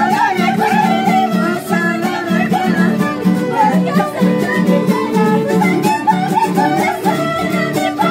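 A violin and an acoustic guitar played live: the guitar strums a steady rhythm under the violin's melody, with people singing along.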